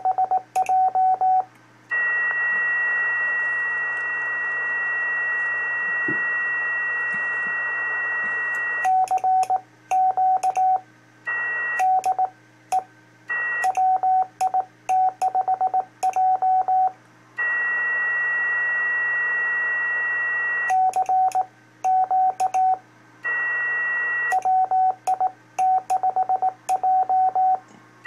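Morse code keyed on an Icom IC-746 transceiver in CW mode: the sidetone's short and long beeps at one steady pitch, in six runs. Between runs the radio switches back to receive, and its hiss returns with a steady high whistle; no station answers.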